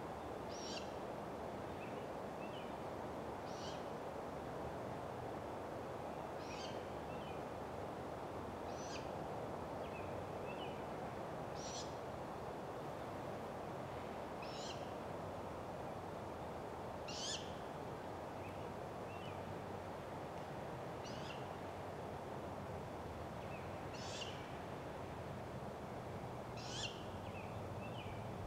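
Great gray owl nestlings giving short, high begging calls, about ten of them at one every two and a half to three seconds, with fainter short notes in between, while the adult feeds them at the nest. A steady outdoor background hiss lies under the calls.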